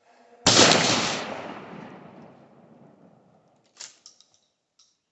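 A single 12-gauge shotgun blast from a Stevens 320 pump with a 28-inch barrel, firing number 8 birdshot. The report cracks out about half a second in and rolls away over a couple of seconds. A few short sharp clicks follow near the end.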